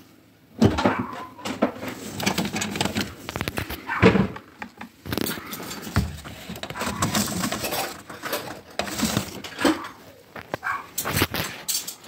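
Clattering, knocks and clicks of a washing machine's metal panels and parts being handled during a repair. A dog yips near the end.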